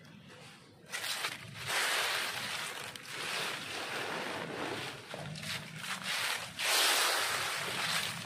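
Dry leaves rustling and crunching as they are handled and stuffed into a woven fabric compost bag. The rustling starts about a second in and comes in uneven surges, loudest twice.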